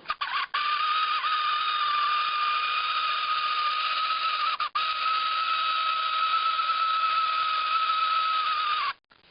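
A vintage Kenner X-Wing toy's battery-powered 3-volt sound-effects motor running, its gear hitting a clear hard plastic piece to make a steady high-pitched whirring buzz. The motor's gear has just been freed from seizing. The sound cuts out for a moment about halfway and stops sharply near the end.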